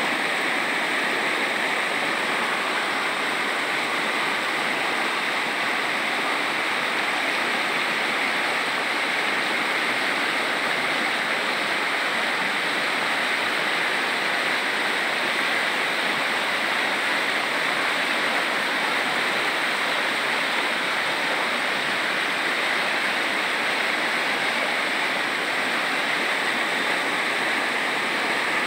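Shallow, fast stream swollen by heavy rain, rushing and splashing steadily over stones.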